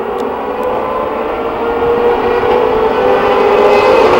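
A full field of race cars running together in a pack, their engines growing steadily louder as they approach.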